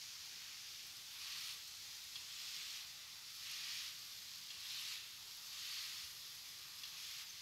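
Paratha frying in ghee on a hot tawa: a faint, steady sizzle that swells several times, about once a second.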